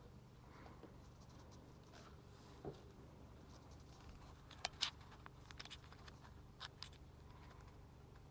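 Near silence: a steady low hum with a few faint, short clicks and scratches, the loudest two close together a little past halfway.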